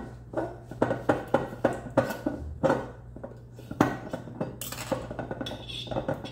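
A small metal knife clicking and scraping at the seal on a glass tequila bottle's neck, in an irregular string of sharp clicks about two a second, as the seal is worked loose. A steady low hum runs underneath.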